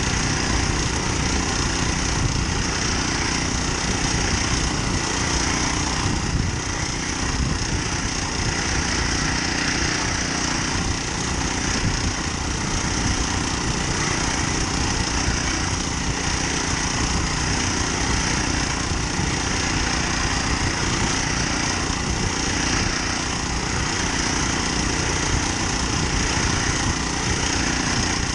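Honda GX35 four-stroke kayak motor running steadily under way, pushing the kayak while towing a second kayak.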